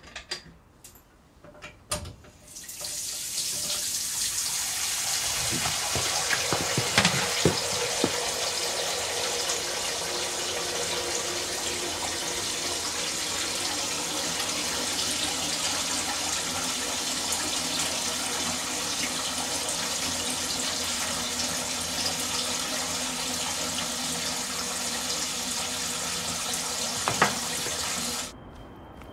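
Tap running into a sink in a steady stream: it comes on about two and a half seconds in and stops abruptly near the end. A few clicks come before it, and a few sharp knocks are heard over it.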